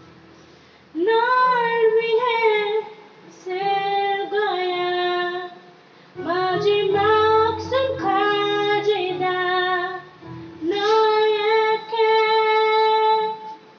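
A young female voice sings a slow Korean ballad into a handheld karaoke microphone, in several held phrases with short breaks between them.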